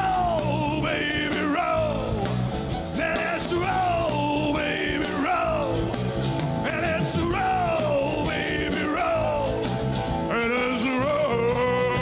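Live rock band playing: a male lead singer over electric guitars and drums, the sung line sliding down in pitch every second or two.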